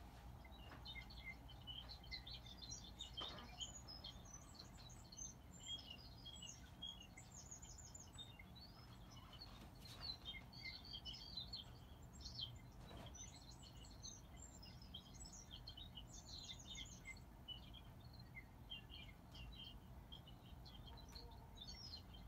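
Faint chirping of small birds, many short high notes in quick runs, over a low steady hum.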